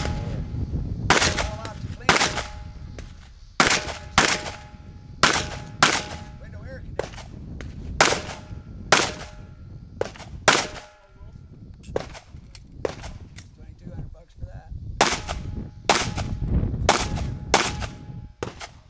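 Pistol fire during a practical shooting stage: around twenty shots, mostly singly or in quick pairs, with pauses of a second or more between strings.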